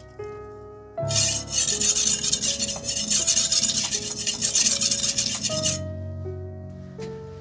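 Shun Damascus cleaver blade being stroked rapidly back and forth on a wet whetstone during sharpening, a gritty rasping scrape that starts about a second in and stops about six seconds in. Soft piano music plays underneath.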